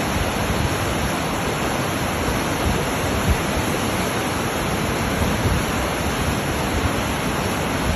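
Steady roar of rushing whitewater.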